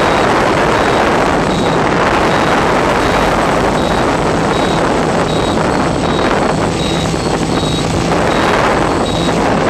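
Octocopter in flight heard from on board: a loud, steady rushing noise of spinning propellers and wind on the microphone, with a faint steady hum underneath.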